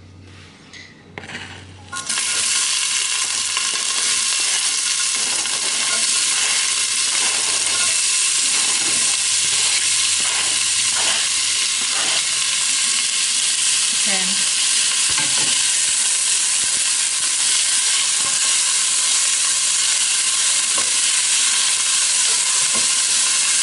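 Diced onion sizzling in hot oil in a stainless steel stockpot, starting suddenly about two seconds in as the onion hits the oil and then holding steady. Light scrapes and knocks of a spoon stirring and scraping the onion in come through the sizzle.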